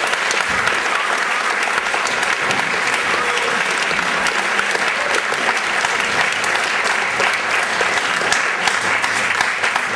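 Audience applauding steadily: many hands clapping at once, with a few voices mixed in.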